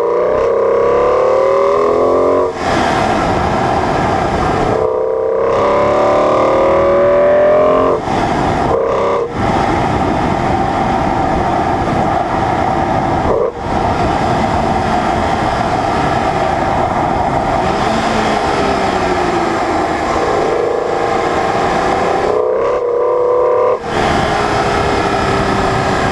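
BMW E46 M3's S54 straight-six pulling through the gears of its manual gearbox, the engine note rising in each gear and breaking off briefly at each shift. The middle stretch is steadier cruising with wind and road rush, then the note falls away and climbs again near the end.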